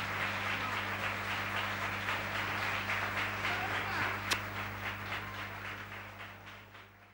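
Audience applauding over a steady low electrical hum, with one sharp click about four seconds in; the whole fades out near the end.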